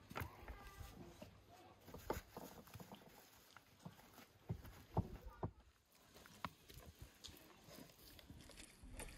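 Faint, sparse knocks and clicks of kitchen work on a wooden cutting board: a knife cutting and a raw duck being handled, a handful of sharp taps over very quiet surroundings.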